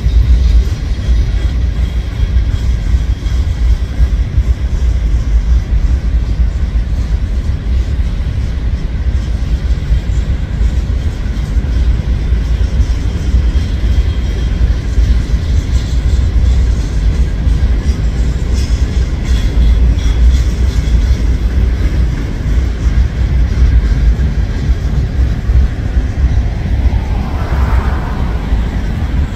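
Norfolk Southern freight train's hopper cars rolling past: a steady, heavy, low rumble of steel wheels on the rails, with a brief pitched squeal near the end.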